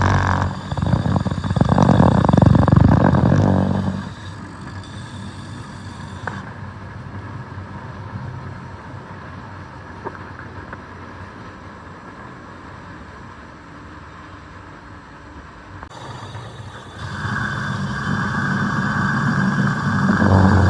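Machinery running with a steady hum, loud for the first four seconds, dropping to a quieter drone, then building up loud again from about seventeen seconds in.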